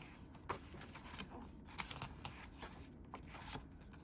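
Pages of a photobook being turned and handled: a string of short paper rustles and light taps, about half a dozen over a few seconds.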